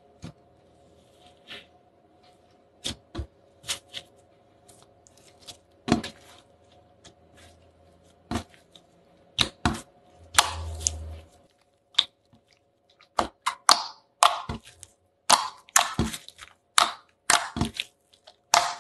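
Clear slime being pressed and squeezed by fingers, giving irregular sharp clicking and popping crackles that come thicker in the second half, with a longer squelch about ten seconds in. A faint steady hum runs underneath.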